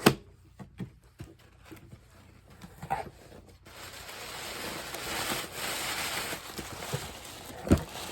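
Box and packaging being handled and opened: a sharp knock at the start, a few seconds of rustling from about halfway in, and a thud near the end.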